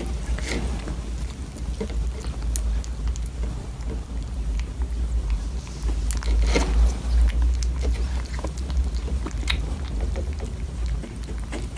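Two kittens eating soft, wet food from bowls: many short, irregular wet licking and chewing clicks over a steady low rumble.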